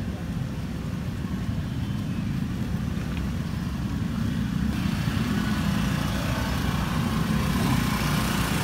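A small engine running steadily with a low hum, with a rise in hiss and loudness about halfway through.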